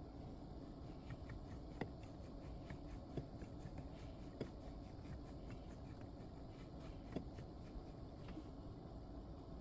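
Faint, scattered small clicks and taps, with four sharper clicks, from small amplifier parts being handled and fitted during reassembly.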